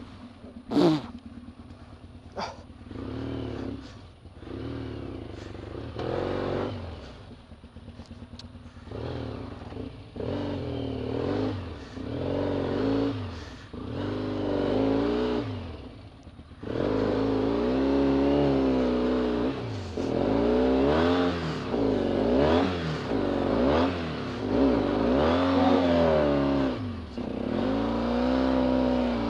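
1991 Yamaha XTZ 750 Super Ténéré's parallel-twin engine revving up and down in repeated throttle pulls as the bike works through slippery mud. The pulls are short and broken in the first half and become louder and more sustained in the second half, with a couple of sharp knocks near the start.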